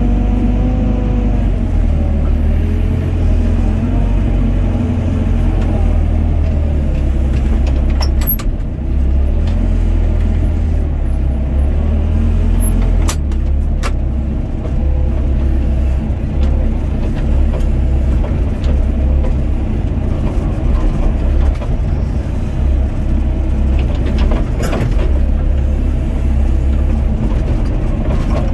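Doosan DX55 mini excavator's diesel engine running steadily under working load as the hydraulic boom and bucket dig a trench. Its steady low drone carries throughout, with wavering pitched whines in the first few seconds and a few sharp knocks and clatters from the bucket and stones.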